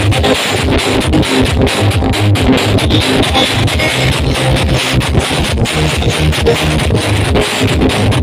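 Loud, bass-heavy music with guitar, played through towering stacks of sound-system speaker cabinets; the deep bass notes pulse in a steady rhythm.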